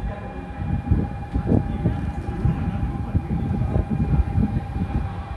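Railway station platform with a train in the station: a steady high ringing tone, the platform departure bell, sounds over an uneven low rumble.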